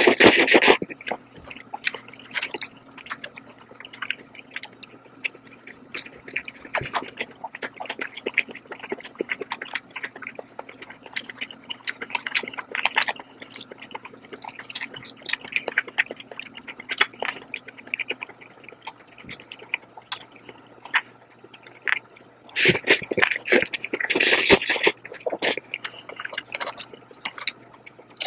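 Close-miked eating of black bean sauce noodles: a loud wet slurp of noodles at the start and another long slurping stretch about 23 seconds in, with soft wet chewing and mouth clicks in between.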